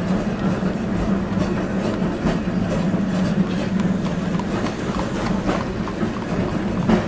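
Added sound effects of a tram running on rails: a steady rumble and hum with irregular wheel clacks, and horses' hooves clip-clopping on the street.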